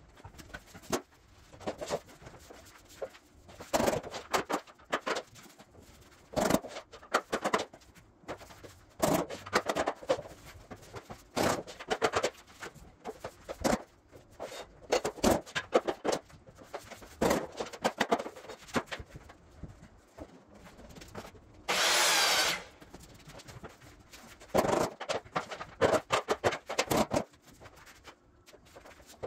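Luxury vinyl planks being laid and knocked into place over foam underlayment: irregular clusters of taps, knocks and clicks. Near the end comes one short, louder scraping rush of noise.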